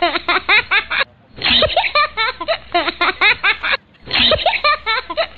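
People laughing hard: rapid pitched ha-ha pulses in long bouts, broken twice by a short pause for breath.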